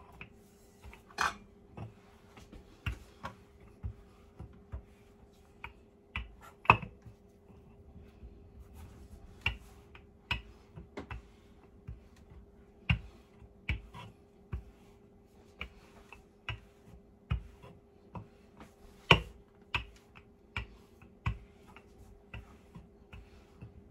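Wooden rolling pin rolling out dough on a wooden board, with irregular clicks and knocks about once or twice a second as the pin bumps and clacks on the board. A faint steady hum runs underneath.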